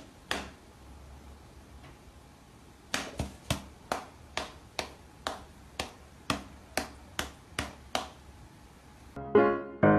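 A cat's paw batting against a person's open hand in a play swat game, making sharp slaps, three in quick succession, then a steady run of about two a second after a short pause. Music comes in near the end.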